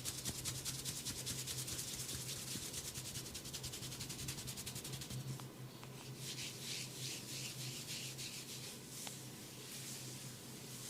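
Hands scratching and rubbing through hair on the scalp in a head massage, fast and even at about eight strokes a second; about halfway the rubbing changes to slower strokes, around two a second. A steady low hum runs underneath.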